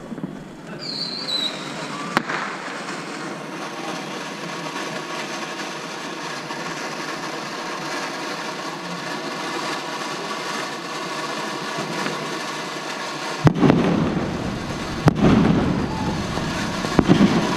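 Consumer fireworks going off: a short falling whistle, then a long steady hiss lasting about ten seconds, then several sharp bangs near the end.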